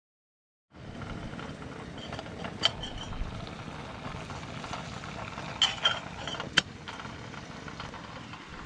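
Portable cartridge gas camp stove burning under a metal kettle: a steady rushing flame noise that starts abruptly just under a second in, with a few sharp ticks about two and a half, five and a half and six and a half seconds in.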